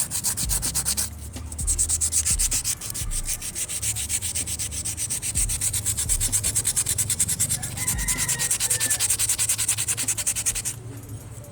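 Rust being scrubbed by hand off a car AC compressor part: a scratchy abrasive rubbing in quick back-and-forth strokes, several a second. It pauses briefly about a second in and stops shortly before the end.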